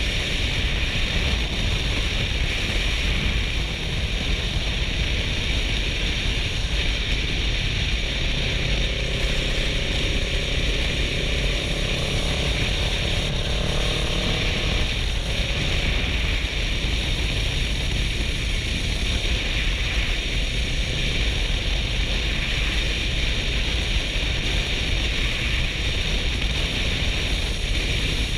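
Steady wind rush buffeting a helmet-mounted GoPro while a Kawasaki Versys 650's parallel-twin engine runs at road speed. A faint rising hum comes through for a few seconds near the middle.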